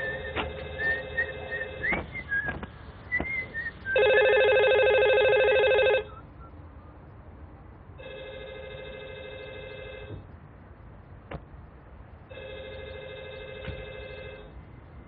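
Telephone ringing in a repeated cadence: four fluttering rings about two seconds long with two-second gaps, the second ring much the loudest. High chirps overlap the first ring.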